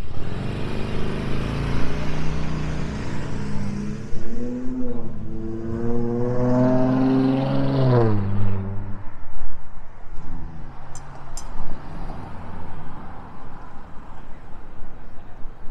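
A motor vehicle's engine accelerating on the street, its pitch climbing for a few seconds, then falling sharply about eight seconds in and fading away over street noise.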